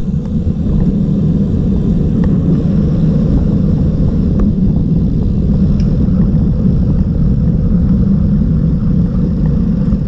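Steady low wind rumble on the microphone of a camera riding on a moving road bicycle, mixed with the bike's tyre and road noise, with a few faint ticks now and then.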